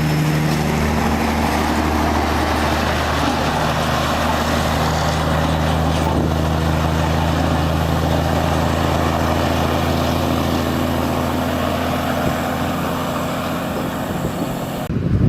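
Heavy-haul truck's diesel engine running at a steady pitch under load, with a haze of road and tyre noise.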